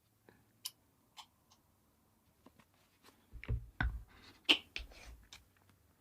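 Close-miked eating sounds: a few scattered sharp mouth clicks, then a burst of louder crisp bites and crunches with dull thumps between about three and a half and five and a half seconds in.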